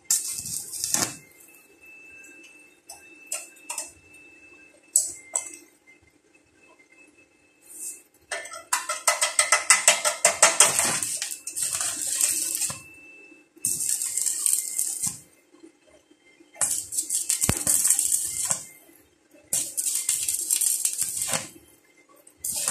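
Stick (arc) welding: the electrode crackling and sizzling in a series of short welds on a steel frame, each one to two seconds long, with a longer one of about four seconds near the middle. A few light clicks fall between the welds, over a steady low hum.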